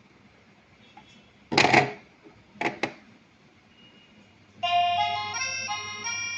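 An electronic ringtone starts about four and a half seconds in: a simple melody of buzzy, reed-like notes. Before it there is a loud noise lasting about half a second, then two short sharp clicks.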